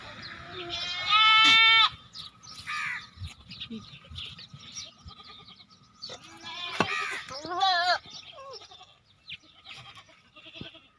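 Goats bleating: a loud, long bleat about a second in, a quavering bleat near three-quarters of the way through, and fainter calls between them.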